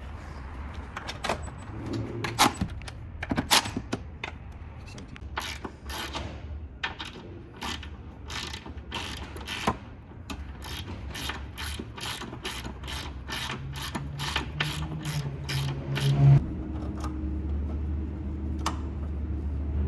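Ratchet wrench clicking in repeated strokes as strut fasteners are run on. A steady low hum comes in near the end.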